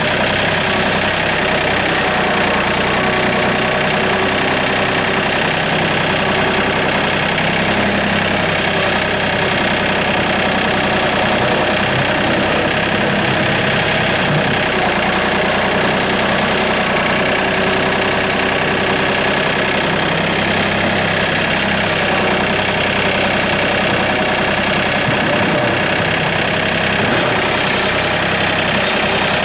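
John Deere compact tractor's diesel engine running steadily at idle, heard from the operator's seat.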